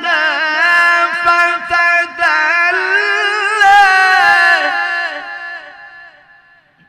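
A male qari reciting the Qur'an in the melodic tilawah style, drawing one long, richly ornamented phrase through a microphone. The phrase fades away about six seconds in.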